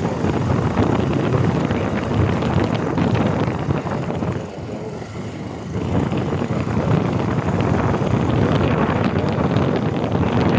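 Motorcycle running on the move, with wind buffeting the microphone; the noise drops for a second or so a little before the middle.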